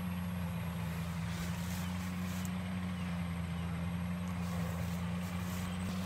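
Engine of a rice threshing machine running at a steady speed, a low even hum.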